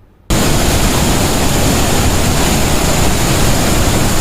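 Steady roar of a large waterfall's rushing water, Devi's Fall, cutting in abruptly about a quarter second in.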